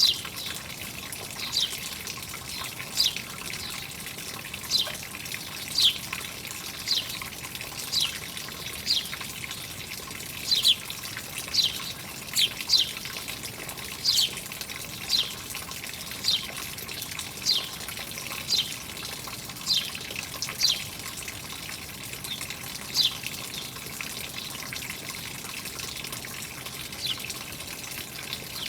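A bird repeating a short, sharp downward-sweeping chirp about once a second, sparser near the end, over the steady rush of running water.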